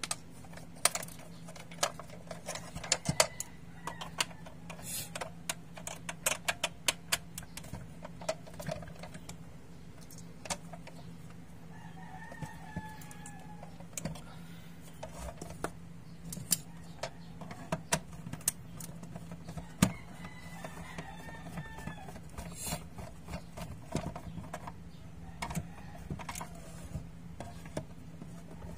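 Irregular sharp clicks and taps of a small screwdriver, loose screws and the plastic case of a portable radio being handled during disassembly, over a steady low hum. A rooster crows faintly twice in the background.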